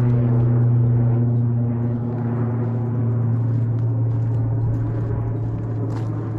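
A deep, steady ringing tone with many overtones, like a struck gong, that starts abruptly just before and fades slowly throughout.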